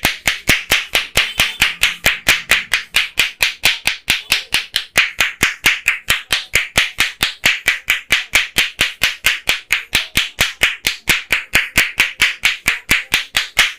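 Barber's hands slapping in a fast, even rhythm during a head massage, about four to five sharp claps a second.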